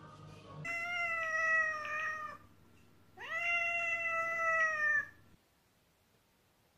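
Domestic cat giving two long meows, each about two seconds, with a short pause between them; the second meow swoops up at its start.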